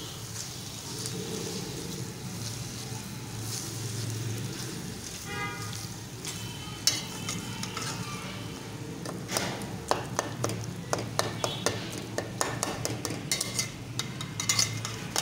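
Chicken mince being stirred and turned in hot oil in a steel pot, sizzling, with a spatula scraping and clicking against the pot. The clicks come quick and close together in the second half.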